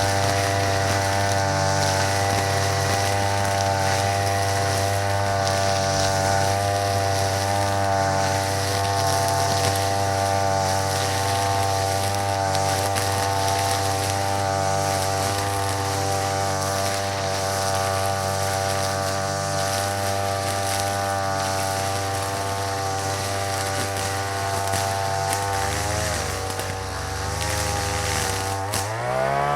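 Small petrol brush cutter engine running at a steady high speed, with its speed wavering briefly near the end.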